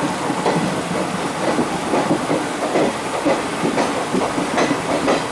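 Passenger train coach running along the track, wheels clattering over rail joints in an uneven run of knocks over a steady rumble and hiss.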